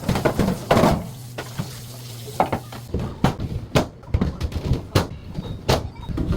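Containers and fridge parts being handled and set down: a series of sharp knocks and clicks over a steady low hum that stops about halfway through.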